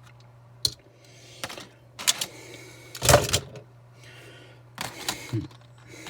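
Small diecast model cars being handled: a series of sharp clicks and knocks, the loudest about three seconds in, over a steady low hum.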